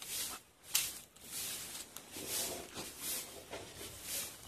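Pond water splashing and swishing in short repeated bursts as a fine-mesh shrimp net is lifted and shaken in the shallows, with one sharp click a little under a second in.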